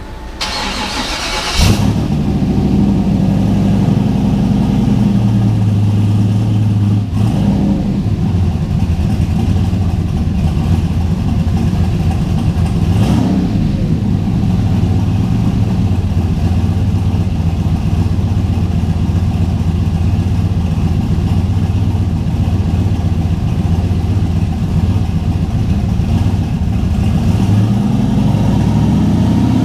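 Turbocharged 6.0-litre V8 with a billet S480 turbo running loud and steady under load, after a short, sharp hiss about a second in.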